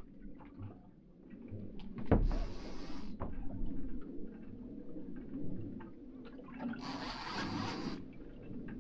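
Water slapping and washing against the hull of a small drifting boat: a sharp thump about two seconds in, and two hissing washes about a second long each, over a low steady rumble with small ticks.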